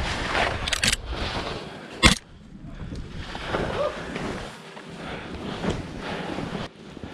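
Skis hissing through fresh powder in a series of turns, the sound swelling and fading with each turn, with wind on the microphone. A sharp knock about two seconds in is the loudest sound.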